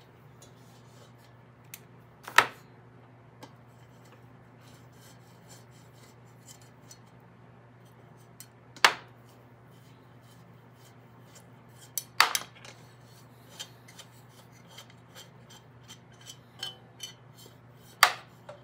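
Hand tools working the valve cover off a Briggs & Stratton overhead-valve engine: light ratchet ticking and small clicks, broken four times by sharp metal clinks as the bolts and the stamped-steel cover are handled.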